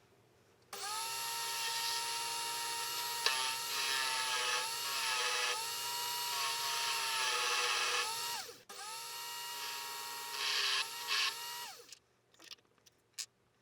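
Unimat lathe's small electric motor running with a steady whine, with rough scraping patches as a thin hacksaw-blade parting tool cuts into the work. The motor is stopped and restarted twice, spinning down each time, and a few light clicks follow near the end.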